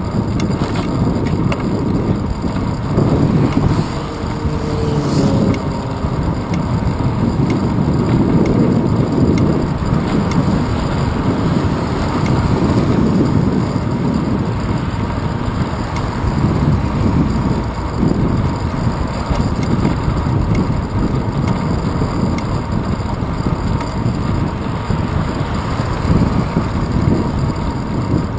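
Wind buffeting the microphone of a handlebar-mounted camera on a bicycle riding along a paved road: a steady low rushing that rises and falls.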